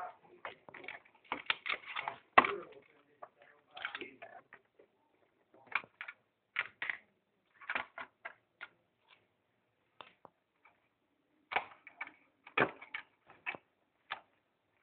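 Irregular clicks, taps and small rattles of wire plugs, a circuit board and a screwdriver being handled inside a robotic lawnmower's plastic housing, with one sharper knock about two seconds in.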